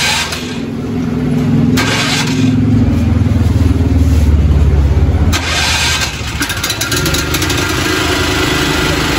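Small engine of a portable open-frame generator being started and running, loudest for the first few seconds, then dropping back about five seconds in and settling into a steadier, higher hum.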